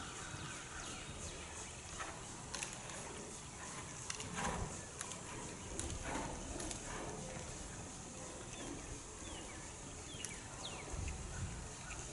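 A horse trotting and cantering under saddle on soft sand arena footing: scattered, muffled hoofbeats at an uneven rhythm, over a steady background hiss, with a few short high falling chirps.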